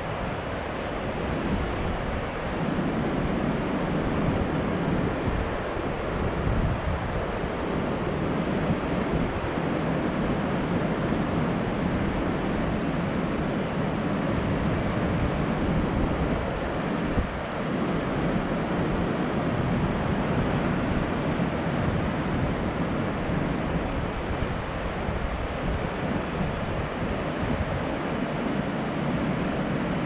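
Steady wind buffeting the microphone, over the continuous wash of ocean surf breaking on rocks.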